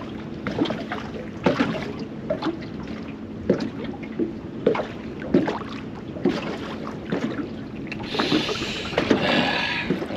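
Small waves slapping against the hull of a small open boat, a knock about once a second over a faint steady hum. About eight seconds in, a rougher rushing hiss rises for about two seconds.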